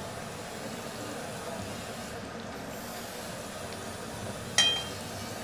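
A metal spatula stirring gravy simmering in a metal kadai, over a steady low hiss. About four and a half seconds in comes a single ringing clink of the spatula against the pan.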